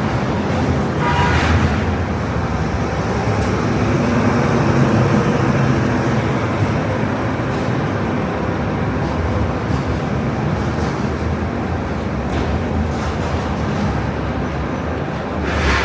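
Busy city street traffic: a steady rumble of vehicle engines and tyres, with a brief high-pitched tone about a second in and a short burst of hiss near the end.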